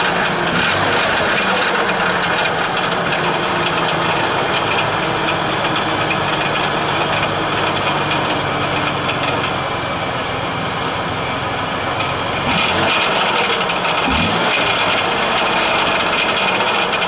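Ford Taurus engine idling, heard from underneath the car, with a steady rattle that the owner suspects is the exhaust, coming from behind the engine. A couple of brief louder scrapes come near the end.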